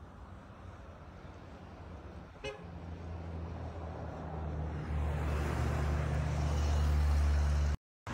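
Road vehicle on the move: a steady low engine-and-road rumble that grows louder about halfway through, with a brief sharp click about two and a half seconds in. It cuts off abruptly near the end.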